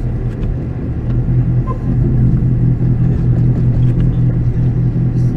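Car engine idling with a steady, deep rumble.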